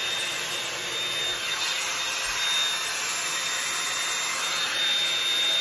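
Bed Head Blow Out Freak hot-air volume drying brush running: a steady rush of blown air with a thin, high motor whine.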